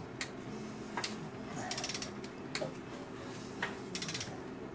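A ratchet turning the crankshaft of a Chrysler 4.7 V8 over by hand, its pawl clicking in a quick run on each back-stroke, twice about two seconds apart, with single clicks between.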